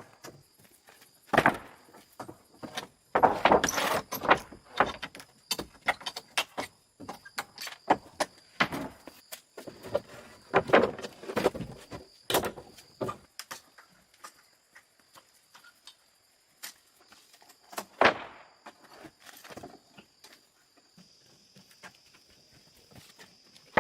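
Irregular knocks and clattering, with loud clusters about one and a half seconds in, around four seconds, around eleven to twelve seconds and once more near eighteen seconds. A faint steady high-pitched tone runs underneath.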